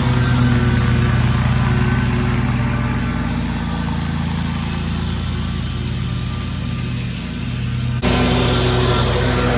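Toro Proline walk-behind mower's engine running steadily under load while mowing. Its sound changes abruptly about eight seconds in, taking on more hiss.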